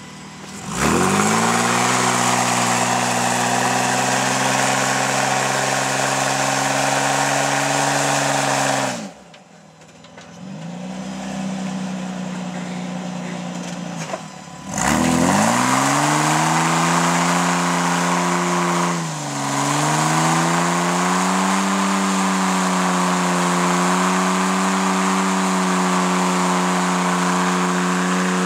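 Ford Explorer's V6 engine held at high revs through a burnout, with the rear tyre spinning and smoking on the pavement. The revs fall off about nine seconds in, run lower for a few seconds, then climb and hold high again, with a short dip a few seconds later.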